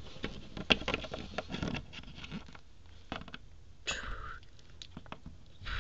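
Small plastic toy figurine tapped and hopped across a wooden tabletop: quick irregular clicks and taps, thickest in the first two seconds, then a few more, with a brief sweeping sound about four seconds in.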